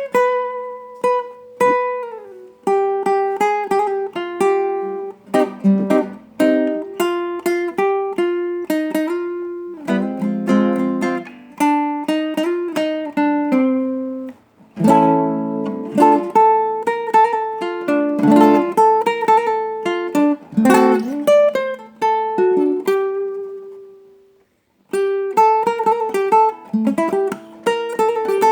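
Instrumental guitar music: a plucked guitar plays a quick melody of ringing single notes and runs. About three-quarters of the way through, the playing dies away to silence for a moment, then starts up again.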